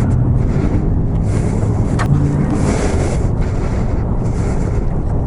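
Wind buffeting a helmet-mounted microphone over a motorcycle engine running at road speed, the wind rising and falling in gusts. A short click about two seconds in.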